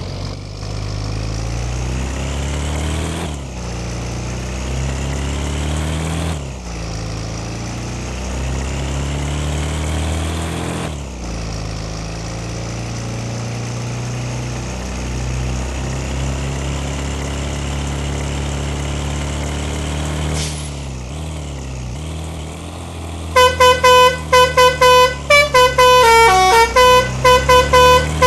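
A bus engine accelerating through the gears, its pitch climbing and then dropping at each of four shifts. About 23 seconds in, a loud Basuri telolet horn starts playing a quick tune of short multi-tone blasts that step up and down in pitch.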